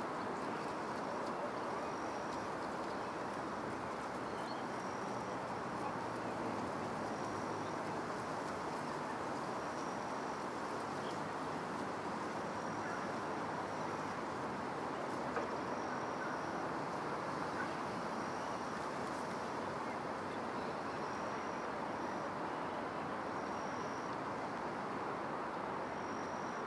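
Steady outdoor background noise, an even hiss-like hum, with a short high-pitched note repeating about every one and a half to two seconds.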